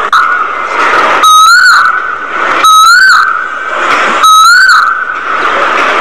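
A whistled call sounding three times, about a second and a half apart. Each is the same steady tone, bending up briefly near its end, over a steady hiss.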